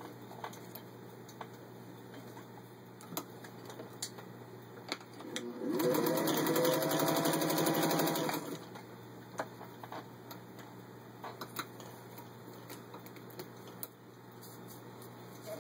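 1938 Singer 201-2 sewing machine stitching through four layers of vinyl upholstery: light clicks of handling, then about three seconds of the machine running fast, its whine rising as it comes up to speed before it stops.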